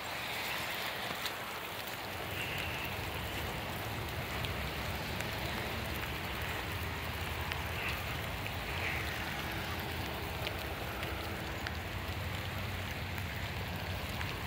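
Light rain and runoff water on a saturated lawn: a steady wet hiss with a few faint ticks and a low rumble underneath.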